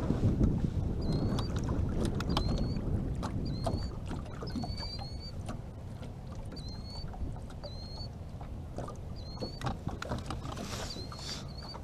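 Low rumbling noise of wind and water around a small aluminum boat, heavier in the first few seconds, with light clicks from hands handling a jig and fishing line. A faint short high chirp repeats about once a second.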